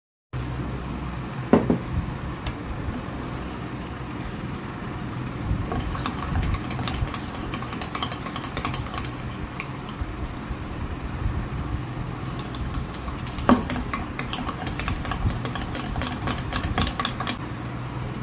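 A spoon rapidly beating coffee for foam in a stainless steel tumbler, clinking fast against the metal in two long runs with a short pause between. Two single sharper knocks stand out, one near the start and one in the middle.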